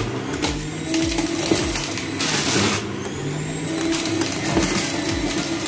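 Electric juicer running as carrots are pushed down the feed chute and ground up, the motor's steady whirr broken by louder surges of grinding, one about two seconds in.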